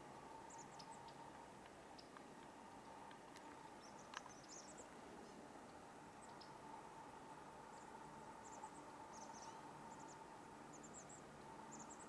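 Faint, very high, thin calls of small songbirds in pine branches: short chips and squeaks in quick little clusters, scattered through the whole stretch.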